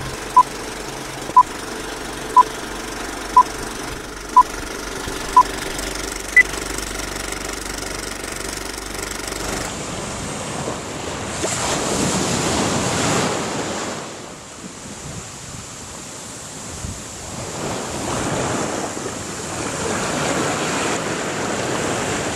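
Film-leader countdown beeps: six short beeps a second apart, then one higher-pitched beep, over a steady hiss. About ten seconds in, this gives way to waves washing in on a pebble beach, swelling and ebbing twice.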